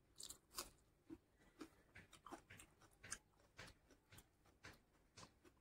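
A person chewing and crunching raw red onion close to the microphone: a string of short crisp crunches and wet mouth clicks, two or three a second.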